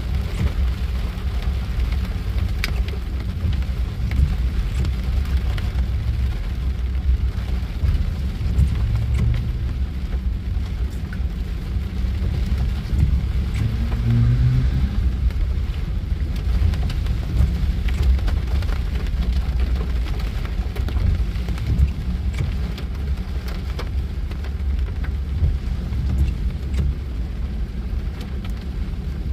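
Heavy rain falling on a car, heard from inside the cabin, over the steady low rumble of a freight train of tank cars rolling past.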